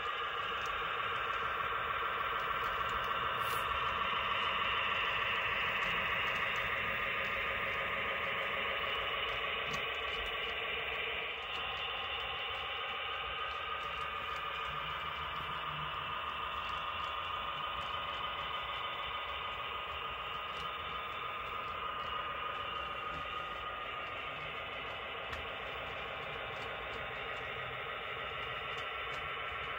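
Model freight train running on the layout, its locomotive's engine sound coming thinly through a small speaker as a steady drone, with faint clicks over it.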